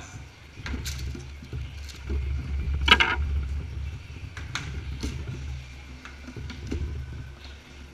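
Crackling and clicking of a HeroClix booster pack being opened and its plastic figures handled, with a sharp crackle about three seconds in, over a low rumble of handling noise.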